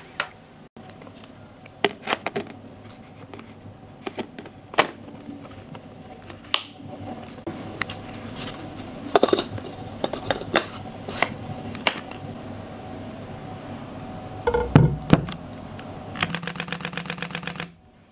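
Camera clicks: scattered single clicks and handling knocks, a louder low bump about fifteen seconds in, then a rapid, even burst of shutter clicks lasting about a second and a half near the end.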